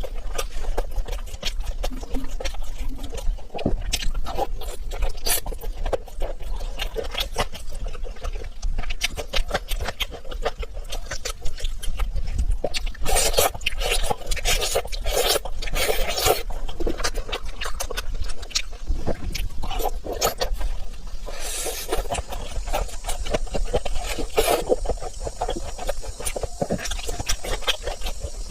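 A person chewing food close to the microphone: a dense, continuous run of wet clicks and smacks.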